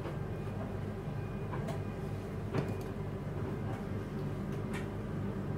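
Steady low hum with a few light knocks on a stone worktop. The clearest comes about two and a half seconds in, as a bottle of colour is set down.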